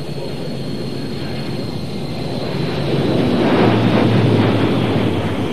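BAe 146 jet airliner's four Lycoming ALF 502 turbofans during a low display flypast: a steady jet rumble with a thin high whine that slowly drops in pitch. It swells loudest about three to four seconds in, then eases off.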